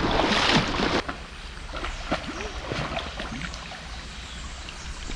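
River water rushing and splashing. About a second in it drops abruptly to a quieter wash with small scattered clicks and bubbling blips.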